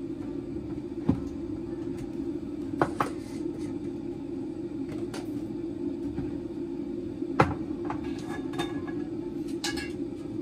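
Kitchen clatter: a handful of sharp knocks and clinks of dishes and utensils, the loudest about a second in, near three seconds and at about seven and a half seconds, over a steady appliance fan hum.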